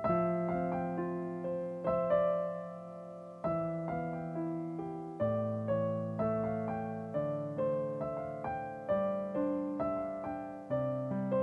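Digital piano played by hand: a slow, gentle pop-style piece of held chords, a new chord struck about every second or so.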